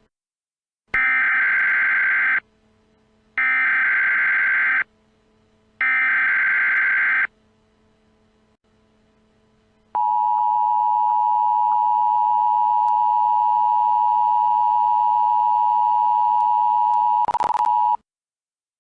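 Emergency Alert System broadcast tones: three digital SAME header data bursts of about a second and a half each, a second apart, then the steady two-tone attention signal for about eight seconds. A brief crackle sounds near its end before it cuts off.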